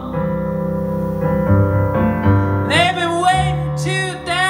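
Live solo piano-and-voice song: chords held and changed on a stage keyboard with a piano sound, then a man's voice comes in a little past halfway, singing long wavering notes over the keyboard.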